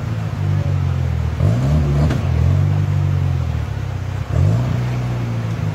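Off-road 4x4 engine under heavy load, revving up sharply twice and holding high revs as the vehicle tries to climb a steep bank out of a river.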